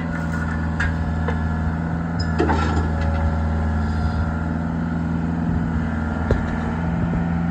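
Skid steer engine running steadily, with a few short clanks and knocks over it.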